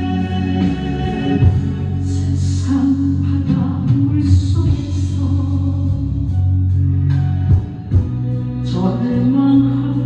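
Woman singing a Korean gospel song into a handheld microphone over instrumental accompaniment.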